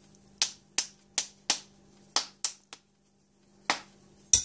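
A metal spoon tapping a packed bath bomb's mold, about nine sharp, irregular taps with the loudest near the end. This is how the bath bomb is knocked loose from the mold.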